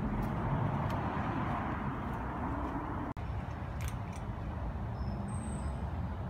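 Steady low background rumble with a faint hiss, broken by a brief dropout about three seconds in.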